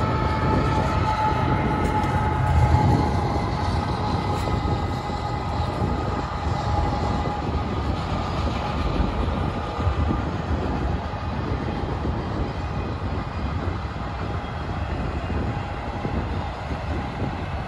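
Freight train passing close by: a Canadian Pacific diesel locomotive's engine goes past and fades as it moves off, with a steady whine that dies away over the first few seconds. Then comes the continuous low rumble and rattle of autorack cars rolling along the rails, slowly easing.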